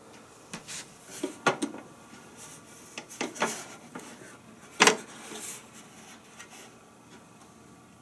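An electric contact grill with a plastic body being picked up and turned over in the hands: scattered knocks and short rattles, the loudest about five seconds in.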